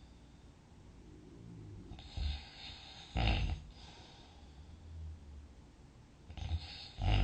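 A sleeping person snoring: soft low rumbling breaths between two loud, short snores, one about three seconds in and another near the end, roughly three and a half seconds apart.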